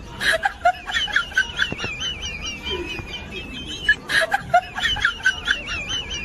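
Bird-like chirps and clucks over a wavering, whistle-like tone, starting over in a repeating loop about every four seconds.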